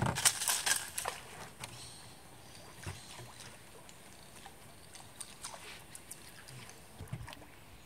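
Sharp clicks and knocks from fishing tackle and the hull of a small boat, several in the first second and then only a few, over quiet open-air river ambience.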